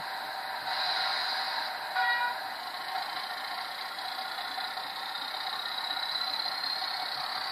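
Electronic diesel locomotive sound from a Train Tech SFX20 sound module in an O gauge Class 40 model, played through its small speaker: a steady engine drone with a short horn note about two seconds in and a slowly rising whine later on.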